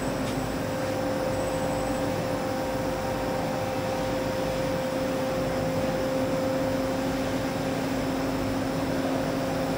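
EDRO DynaWash three-pocket end-loader washer-extractor running: a steady machine hum carrying a constant mid-pitched tone and a lower one, at an even level throughout.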